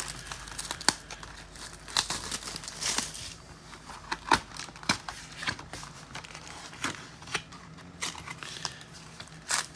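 Plastic wrap and cardboard crinkling and crackling in irregular sharp bursts as a sealed box of trading card packs is torn open and handled.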